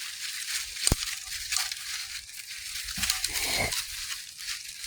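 Puppies rummaging through clutter, a steady crinkling and crunching rustle, with a sharp click about a second in.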